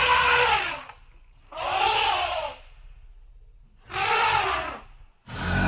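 Elephant calls used as a creature sound effect: three separate calls of about a second each, each rising then falling in pitch, then a louder, deeper call begins near the end.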